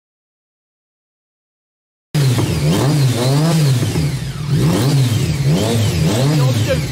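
Silence for about two seconds. Then a Yamaha MT-09's inline three-cylinder engine, fitted with an aftermarket exhaust, revs in a run of quick throttle blips, the pitch rising and falling over and over.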